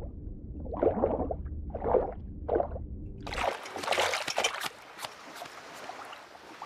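Cartoon water sound effects: a muffled underwater rumble with a few short bubbly gurgles, then, about three and a half seconds in, a sudden change to splashing and dripping water as a diver is hauled up out of the sea on a line.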